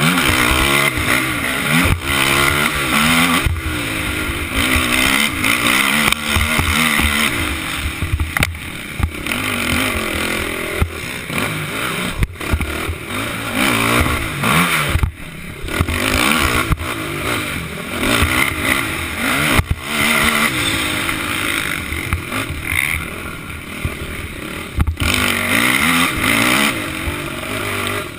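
Racing quad's engine revving hard and backing off again and again under race throttle, its pitch rising and falling, heard from the rider's helmet camera. The engine sound drops off briefly about fifteen seconds in.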